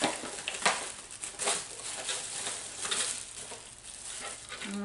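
Boxed item's packaging being handled: irregular rustling and crinkling with light knocks, cardboard and plastic being moved as the contents are checked.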